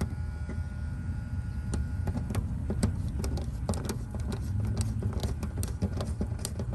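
Many small, irregular metallic clicks and ticks from a screwdriver working the wire terminal screws on a heat pump's contactor as they are tightened, over a steady low rumble.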